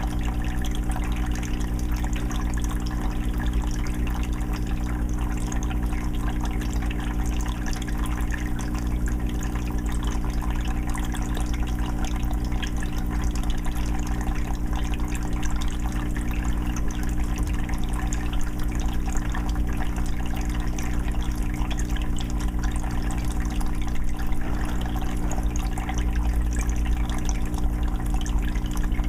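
Aquarium filter water trickling and bubbling steadily into a 20-gallon fish tank, with a steady low hum underneath.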